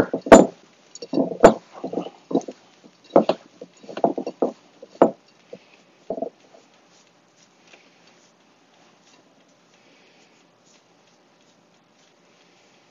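Bare hands rubbing butter into a crumbly brown-sugar and flour mixture in a ceramic mixing bowl: irregular squishing and rustling, with two sharp clicks in the first two seconds, thinning to faint rubbing after about six seconds.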